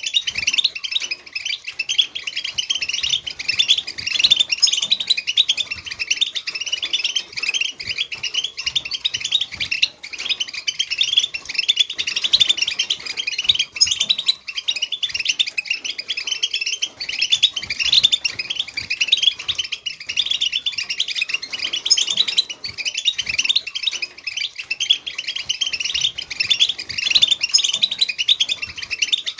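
A group of European goldfinches twittering together in dense, continuous, overlapping chirps: the collective chatter that keepers play to caged goldfinches to set them singing.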